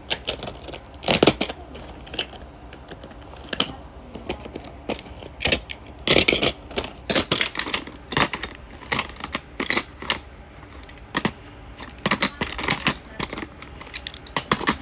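Small hard collectible pieces being handled and set into place, giving irregular clicks, taps and clattering, with busier clusters about a second in, around the middle and near the end.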